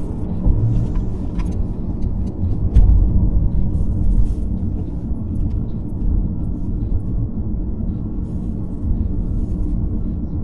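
Car driving at road speed, heard from inside the cabin: a steady low rumble of engine and tyre noise, swelling briefly about three seconds in, with a few faint ticks.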